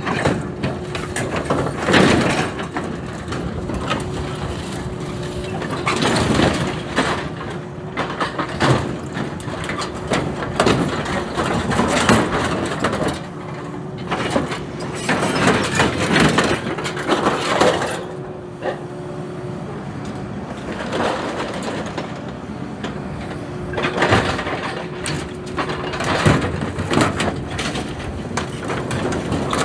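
Excavator running with a steady tone underneath while it tears and crushes old rusty farm machinery, with repeated crunching and cracking of metal being ripped off a piece at a time.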